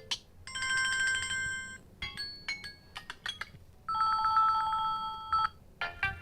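Samsung Galaxy A01 Core's built-in alert tones playing through its speaker: short electronic chime melodies. After a click at the start comes a held pulsing chord, then a run of quick plucked notes, then another held pulsing chord, with more quick notes near the end.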